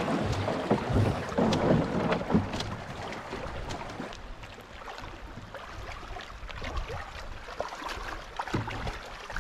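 Shallow river water rushing through a riffle, with splashing as a person wades beside a loaded canoe and hauls it along by hand. Wind buffets the microphone, and there are irregular knocks. It is louder for the first few seconds, then settles.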